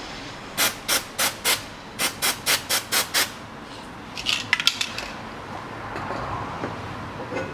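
Metal rubbing in about ten short rasping strokes, in two quick runs, then a brief clatter of small metal clicks, as a brake drum is worked onto the rear hub over freshly fitted brake shoes.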